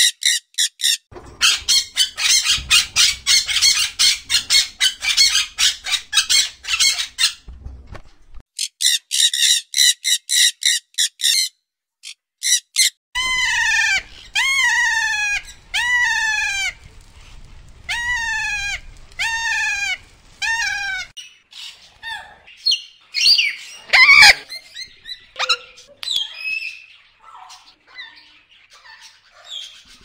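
Pet parrots calling: first a long stretch of rapid, high, clicking chatter, then a run of about nine repeated calls, each falling in pitch, about one a second, from a blue-and-yellow macaw, followed by scattered short calls with one loud squawk later on.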